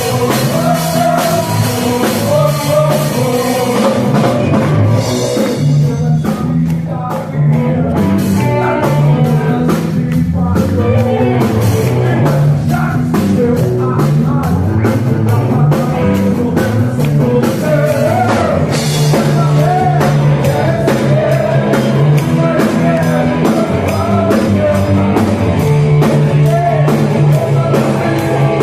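Rock band playing: a drum kit, guitar and a singing voice. The cymbals drop back for a few seconds about five seconds in.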